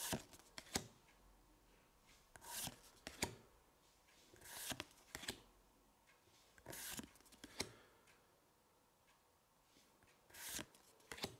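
Pokémon trading cards being slid one at a time off a hand-held stack and moved to the back. Five soft swishes, each with a sharp click, roughly every two seconds.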